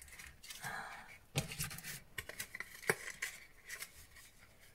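Small cardboard lipstick boxes handled and opened by hand: light scraping and rustling of card with a few soft clicks, the sharpest a little before three seconds in.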